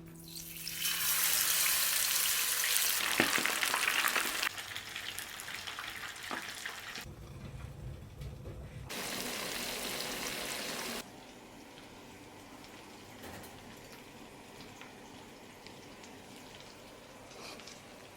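Tempura frying in hot oil. A loud sizzle starts about a second in and settles into a softer crackle. The sound changes abruptly several times between shots, with a brief low hum about seven seconds in.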